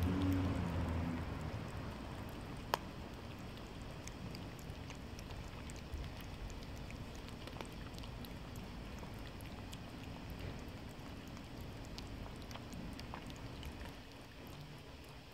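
Cats licking lickable cat-treat purée off the floor and eating from a bowl: scattered small wet ticks over a steady hiss, with one sharp click about three seconds in.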